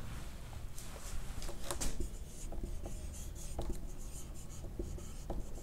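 Marker pen writing on a whiteboard: a run of short, irregular pen strokes as a word is written.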